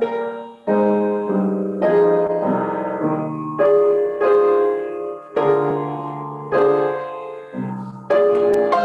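Upright piano played in slow, hymn-like chords, each struck and left to ring and fade, about one a second. The playing grows louder near the end.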